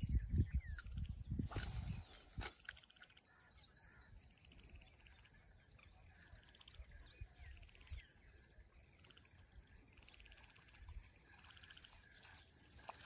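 Outdoor wildlife ambience: insects keep up a steady high drone, with short bursts of fast pulsed chirping every few seconds. A low rumble on the microphone fills the first two seconds.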